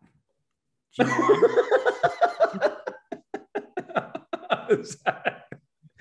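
Men laughing, starting about a second in as a loud outburst that breaks into quick short bursts and tapers off near the end.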